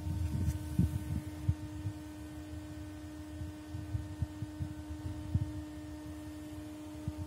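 A steady low electrical-sounding hum, with irregular low thumps and rumble on the microphone that are heaviest in the first two seconds.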